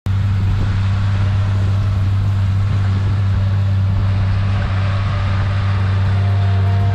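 Tractor engine running at a steady speed with a constant low hum, pulling a trailed crop sprayer across a wheat field.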